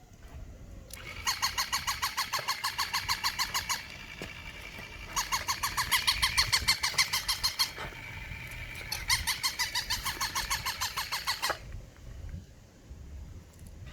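A toy Shiba Inu gives off a rapid, evenly pulsing high-pitched sound in three bursts of about two and a half seconds each, with short pauses between them.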